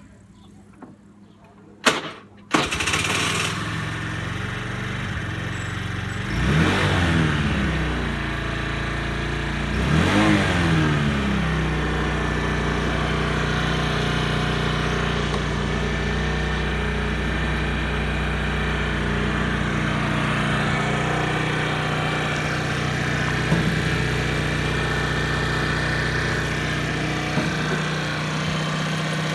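Honda Today AF61 scooter's 49cc four-stroke single-cylinder engine starting about two seconds in. It is blipped up in revs and back down twice, then settles into a steady idle. The shop reckons it free of any particular abnormal noise.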